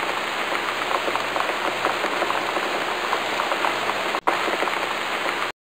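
Steady rain pouring with a dense patter, broken by a split-second dropout about four seconds in and cutting off abruptly near the end.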